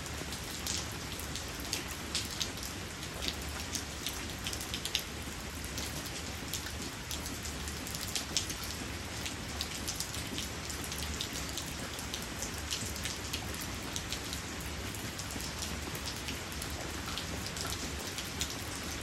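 Steady rain falling on a wet concrete patio and its puddles: an even hiss dotted with frequent sharp ticks of individual drops.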